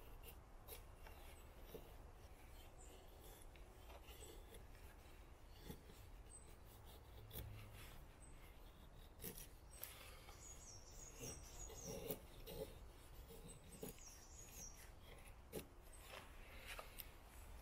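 Faint, intermittent scraping of a Taxus Wisdom bushcraft knife blade shaving thin slivers from wood, with scattered small clicks.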